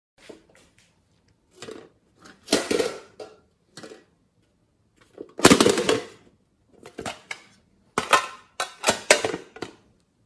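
Hands handling hard plastic containers: irregular clicks, knocks and clatters in short bursts, the loudest about five and a half seconds in.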